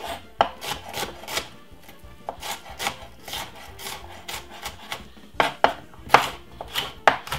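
Chef's knife chopping white onion finely on a wooden cutting board: irregular strikes of the blade on the board, about two a second, louder and sharper in the last two seconds.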